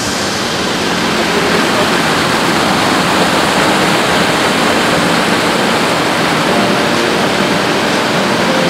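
White water of a small rocky stream cascading down a stone channel: a steady, loud rush of water.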